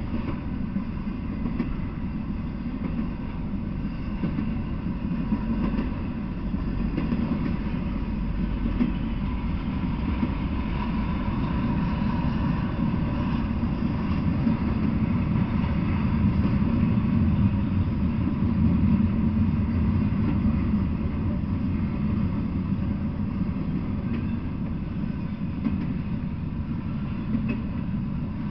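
Intermodal freight train of double-stack well cars rolling past, its wheels running on the rails in a steady, unbroken noise.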